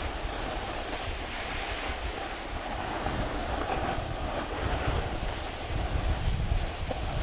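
Snowboard sliding and carving over groomed snow, a steady rushing hiss, with wind buffeting the action camera's microphone in low rumbling gusts.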